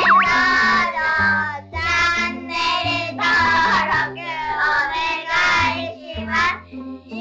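Cheerful children's-style jingle: sung vocals over a bouncy bass line, with a springy boing sound effect right at the start.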